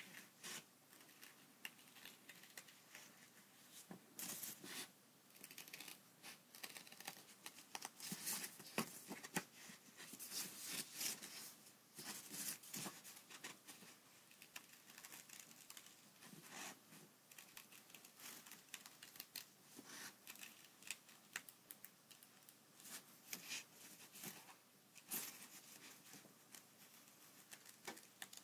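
Small pointed scissors snipping through a sheet of white paper in soft, quick, irregular cuts as a papercut figure is cut freehand.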